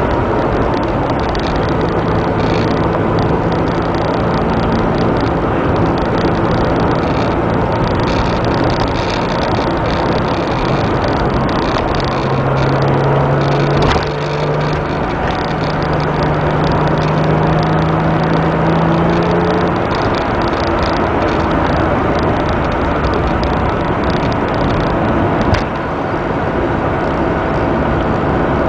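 Porsche 996 flat-six engine running under way, heard from inside the cabin over dense road and wind noise. The engine note climbs slowly, with sudden brief dips in level about halfway through and again near the end, where it shifts gear.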